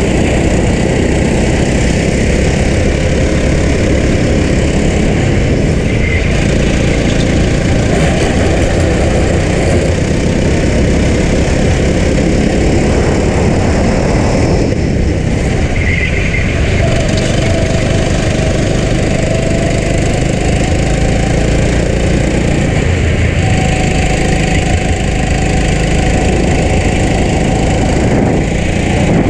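Racing go-kart engine running hard at speed, heard onboard the kart. The engine eases briefly about halfway through, then pulls back up.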